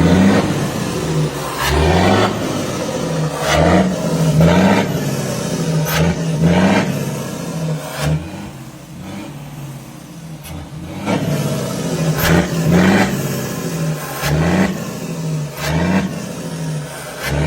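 Volkswagen Meteor truck's six-cylinder diesel, exhausting through a diffuser, revved in a string of short blips, its pitch rising and dropping with each one.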